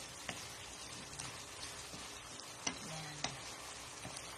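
Chicken adobo sizzling in its sauce in a pan, a steady frying hiss, with a few sharp clicks of a utensil against the pan, most clearly twice near the end.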